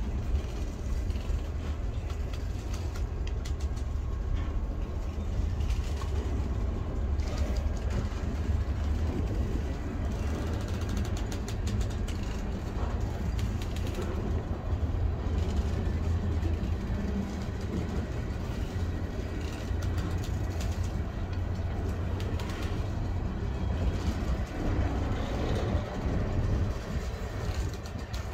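Freight cars (a covered hopper, then tank cars) rolling slowly past close by as the train is shoved back in reverse during switching. Their steel wheels rumble steadily on the rails, with scattered clicks and clanks.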